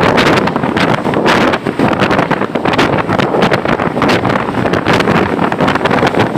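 Loud, steady wind buffeting and rain noise on the microphone, over the running noise of a moving vehicle.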